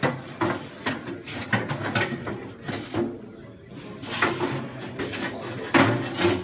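Irregular metal knocks and clanks as the auger assembly of a Gravely snowblower is worked loose by hand and shifted against its steel housing after the bearing blocks have been unbolted.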